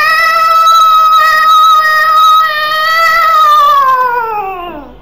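A girl's voice imitating the yowl of cats mating. It is one long, high, wavering call that rises at the start, holds for several seconds, then slides down in pitch and fades near the end.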